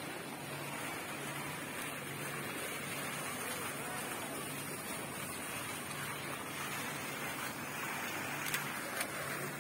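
A courtyard fountain splashing steadily into a shallow pool, with water running over the pool's edges. Two sharp clicks come near the end.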